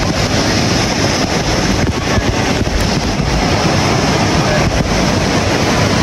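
Fast-flowing mountain stream rushing over rocks: a steady, loud wash of water.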